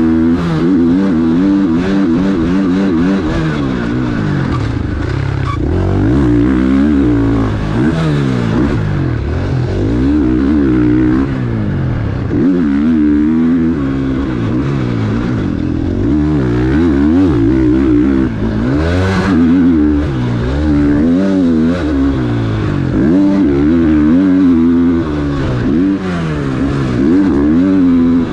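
KTM 450 SX-F motocross bike's four-stroke single-cylinder engine being ridden hard, revving up and dropping off over and over, its pitch rising and falling as the throttle is opened and shut.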